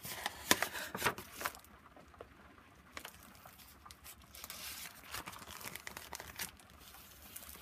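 Crinkling and crackling of the paper and plastic-wrapper pages of a collaged junk journal as they are turned and smoothed by hand: a cluster of crackles in the first second and a half, one sharp crack about three seconds in, and more crinkling past the middle.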